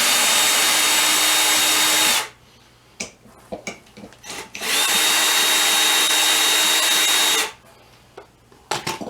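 Cordless drill running in two bursts of about three seconds each, spinning up and then holding a steady whine before cutting off, with small clicks between. It is driving down the screw of a bead-breaker clamp to push the tire bead off the rim.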